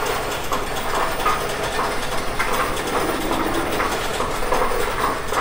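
Coinstar coin-counting machine running, with a steady mechanical rattle of coins passing through it as they are counted.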